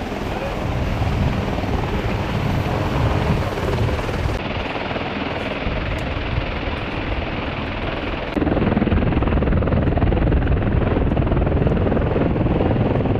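CH-53E Super Stallion helicopter running, a loud steady din of rotor and turbine engines. The sound shifts abruptly about four seconds in and gets louder about eight seconds in.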